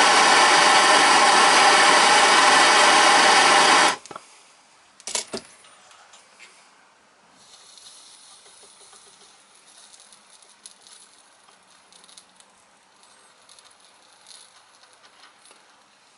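Handheld gas torch burning with a steady loud rush of flame, shut off abruptly about four seconds in. A few sharp clicks follow, then only a faint high hiss.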